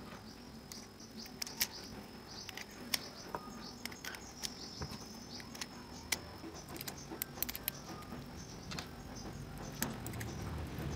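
Small, irregular clicks and taps of electronic components being handled and pushed into a printed circuit board: transistor and resistor leads and plastic bodies knocking against the board and fingers.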